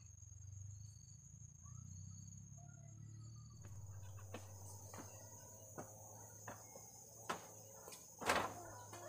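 Crickets trilling steadily at a high pitch, faint. From about halfway, a series of sharp knocks comes roughly once a second, louder near the end.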